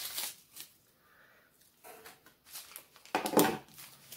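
Bubble wrap and packing paper crinkling and rustling in short bursts as a wrapped item is pulled loose, with the loudest rustle a little over three seconds in.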